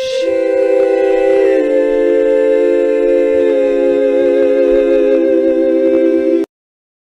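Several male voices singing a long held "Shiiii..." in close harmony. New voices join one after another to build up a chord that shifts a few times, then all stop abruptly near the end.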